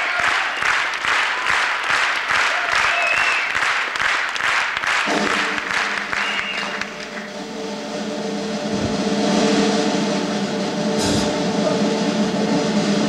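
Audience applause with a few short whistles, fading as music with long held tones comes in about five seconds in; a couple of low thumps sound later in the music.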